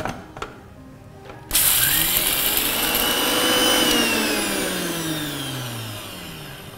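Electric mixer grinder grinding dry roasted spices into gojju powder. It is switched on suddenly about a second and a half in and its whine climbs as the motor gets up to speed. After a couple of seconds it is switched off, and the whine falls and fades as the blades spin down.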